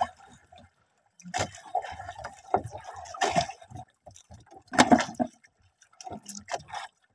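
Sea water splashing and sloshing against a small boat in irregular bursts, with a few knocks as the fishing line is handled.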